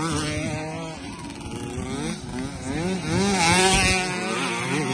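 Small dirt-track racing motorcycles' engines revving up and down as they ride past close by, with a rising whine that is loudest about three to four seconds in.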